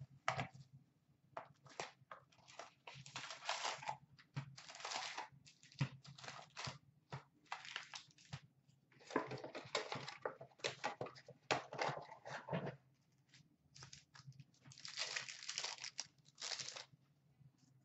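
Hockey card pack wrappers being torn open and crinkled by hand, in irregular bursts of tearing and crinkling with short gaps and a few sharp clicks.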